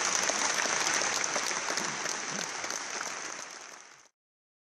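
Audience applauding, many hands clapping at once. The clapping dies down over the last second or so and then cuts off abruptly about four seconds in.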